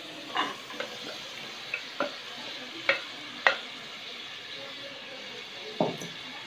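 Hot tomato masala sizzling steadily in a pan as yogurt-marinated chicken is scraped into it from a glass bowl with a wooden spoon. The spoon knocks sharply against the bowl and pan about six times.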